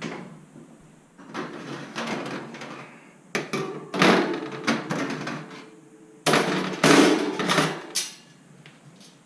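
Wire oven racks of a gas range being pulled out of the oven, metal rattling and scraping along the rack supports in three bursts, the last two the loudest.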